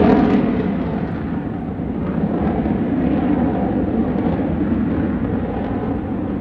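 F-22 Raptor's twin Pratt & Whitney F119 turbofan engines as the jet flies overhead. The loud jet noise is strongest at the very start, eases off over the next second or so, then holds steady.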